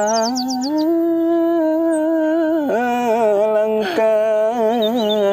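A man singing unaccompanied in long, drawn-out notes with vibrato, the tune sliding between held notes and breaking briefly about two and a half seconds in. It is a slow, ornamented sung line: "sebelum kita makan, alangkah baiknya kita berdoa dulu" (before we eat, let us first pray).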